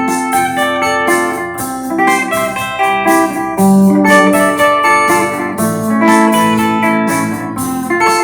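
Electric guitar played on a clean tone: a run of plucked notes and chords over sustained lower notes.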